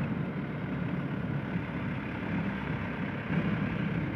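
Mitsubishi Canter light truck's diesel engine running steadily, a low, even engine sound with no revving.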